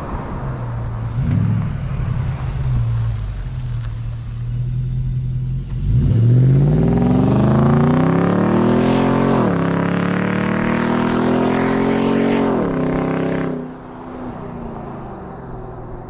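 Nissan Y62 Patrol's 5.6-litre V8, through a Pacemaker centre-muffler-only exhaust with the secondary cats deleted, idling and then accelerating away. The revs climb and drop back twice as it shifts up. The note fades as the vehicle gets further off.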